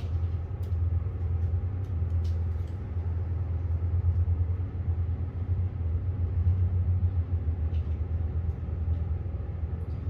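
Steady low machinery rumble, with a few faint clicks in the first few seconds.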